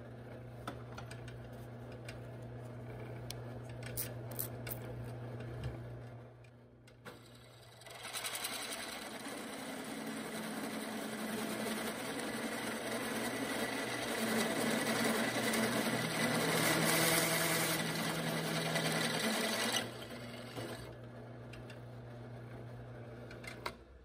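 Drill press running with its bit cutting through a steel bar. A steady motor hum, then from about eight seconds in the cutting noise grows loud for some twelve seconds before dropping back to the hum.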